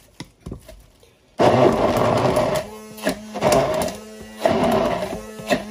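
Electric hand blender's chopper attachment running in repeated surges as it blends coriander leaves into a paste. It starts suddenly about a second and a half in, after a few light clicks.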